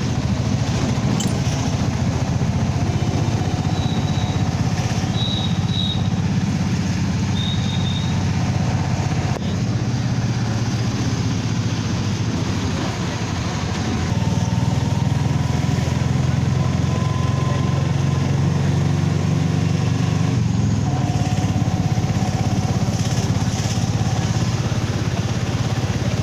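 A vehicle's engine running steadily with road noise during a ride, getting a little louder about halfway through.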